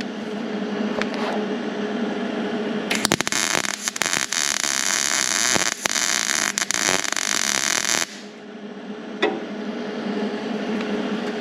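MIG welder arc crackling steadily for about five seconds while laying a plug weld in 18-gauge sheet steel, stopping abruptly; the result is described as a nice circular burn-in. A steady hum runs before and after the weld.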